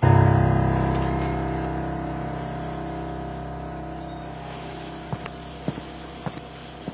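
A single deep sustained chord struck at once and slowly fading away, a dramatic music sting; a few light clicks come in near the end.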